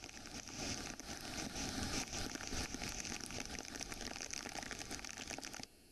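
Steady rushing noise of floodwater pouring out through a dam's opened gates, stopping abruptly near the end.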